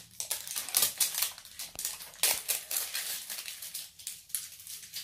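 Plastic packaging crinkling and crackling in quick irregular spurts as it is handled and unwrapped.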